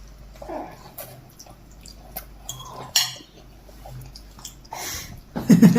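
Light clicks and knocks of a bowl and cutlery being handled as a baby eats. Near the end there is a short, loud vocal sound.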